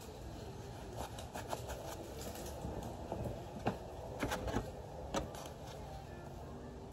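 Handling noise: a scattering of light clicks and knocks as gloved hands pick up and position an angle grinder, over a faint low rumble.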